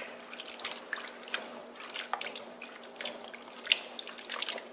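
A hand swishing and rubbing cut yardlong beans in a bowl of water, with irregular small splashes and drips.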